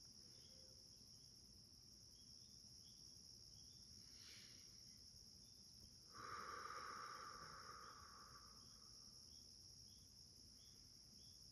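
Near silence with faint crickets trilling steadily. A soft rushing swell starts about six seconds in and fades away over about three seconds.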